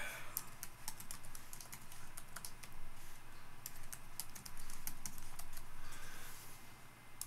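Typing on a computer keyboard: a quick, irregular run of keystrokes entering a password and then confirming it, with a soft hiss for a couple of seconds a little after halfway and one sharper key click at the end.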